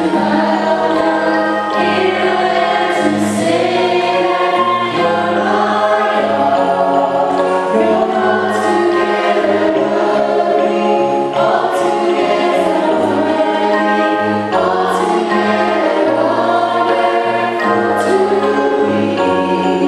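Church choir singing a gospel song over held bass notes that change every second or so.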